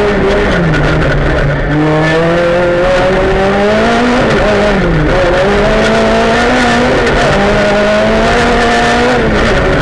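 Rally car engine heard from inside the cabin, driven hard: the revs drop sharply at a gear change about two seconds in, climb, fall back around five seconds in, then climb again and drop near the end.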